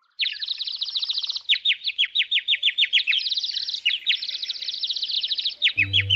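Bird singing: long runs of sharp chirps, each sweeping down in pitch, about seven a second. Low, held music tones come in near the end.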